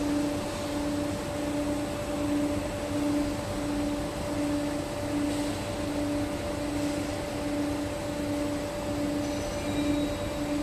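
Steady machine hum: a constant tone with a lower tone pulsing on and off about twice a second, over even mechanical noise.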